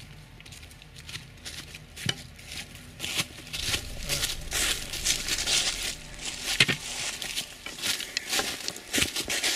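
Footsteps crunching on dry leaves, grass and stones along a mountain path, with a few sharper knocks, growing louder about three seconds in as the walkers come close.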